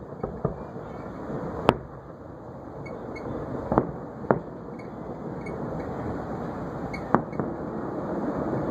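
Aerial fireworks shells bursting at a distance: about seven sharp, separate bangs at uneven gaps, over a steady background rush. The loudest come about two seconds in and near the end.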